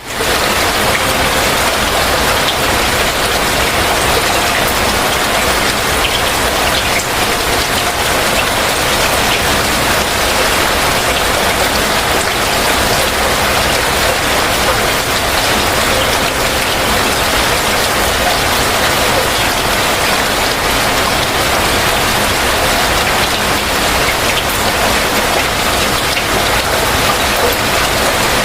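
Heavy rain falling steadily, a dense even hiss of drops with individual drop hits ticking through it.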